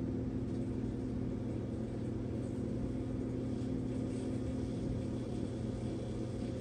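Steady low electrical hum from a running appliance, unchanging throughout.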